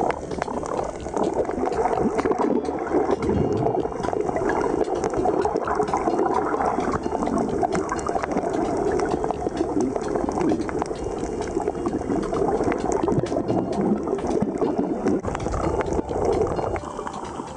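Water and bubbles heard by a camera held underwater while snorkelling: a steady, dense crackle of small bubbling sounds with no break.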